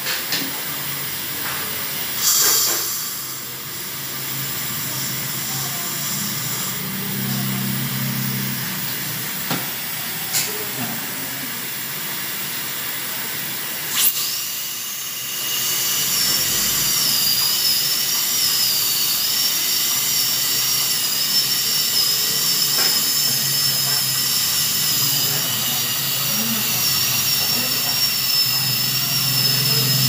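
A steady hiss with a few short clicks, then from about halfway a high-speed dental drill whining continuously, its high pitch wavering slightly as it drills a tooth for a filling.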